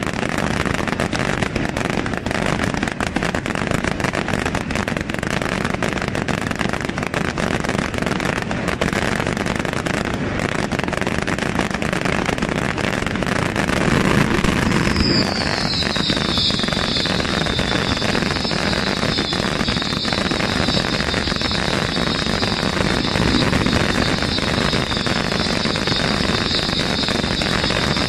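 Aerial fireworks barrage: a dense, continuous run of shell bursts and crackling. About halfway through, a high steady whistle joins in, dipping slightly in pitch at first and then holding, as rockets stream up.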